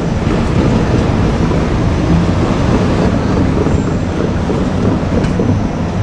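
Two-car KiHa 47 diesel railcar running along the track, a steady low rumble from its diesel engines.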